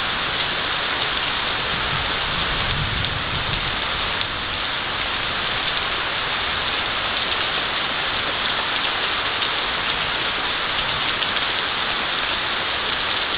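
Heavy rain pouring steadily, with a low rumble of thunder swelling briefly about two seconds in.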